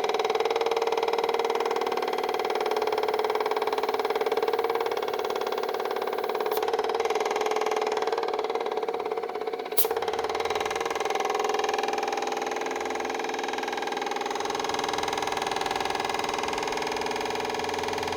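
Homemade air compressor built from a refrigerator compressor, running with a steady hum. A sharp click sounds about ten seconds in, just after a brief dip in level.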